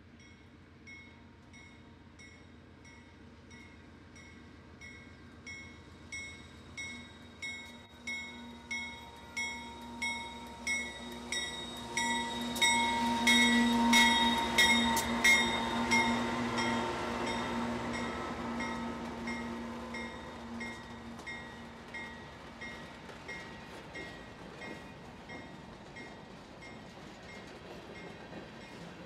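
Diesel freight locomotives passing close by. The engine rumble swells to its loudest about halfway through and then fades as covered hopper cars roll past. Throughout, a bell rings in even strokes about every 0.7 seconds.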